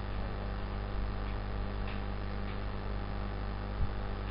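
Steady electrical mains hum over a low hiss, with a few faint ticks and a short low thump near the end.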